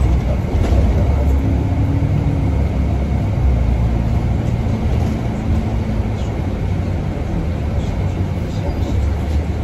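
City bus running, heard from inside the passenger cabin: a steady low rumble of engine and road noise with a faint engine hum.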